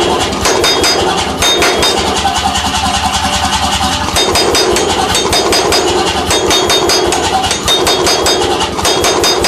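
C41 pneumatic forging hammer running and striking a red-hot steel bar between its dies in a steady, rapid run of blows, several a second, over the hum of the machine.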